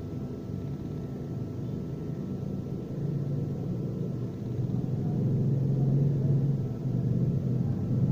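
Low steady rumble of a running engine, growing gradually louder.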